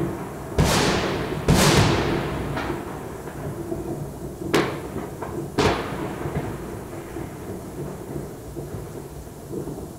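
New Year's Eve fireworks and firecrackers going off: a string of loud bangs, two big ones in the first two seconds and two sharper cracks about halfway through. Each bang trails off in a long echoing rumble.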